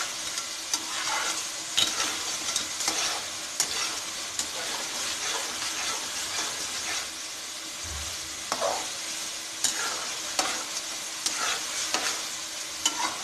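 Soaked mash daal (split urad lentils) sizzling as it fries in oil and masala in a metal pan, with a slotted spatula scraping and turning it in irregular strokes about once a second. The frying has reached the stage where the oil separates from the masala.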